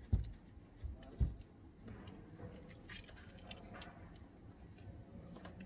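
Handling of a camera gimbal's small mounting plate and a mirrorless camera. There are two dull knocks in the first second or so, then scattered light clicks and rattles.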